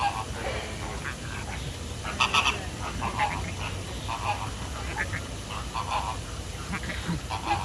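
Birds calling: short honking calls repeated irregularly, over a steady low rumble.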